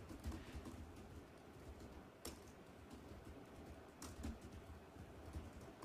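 Faint typing on a laptop keyboard: scattered key clicks, with sharper clicks a little past two seconds in and again about four seconds in.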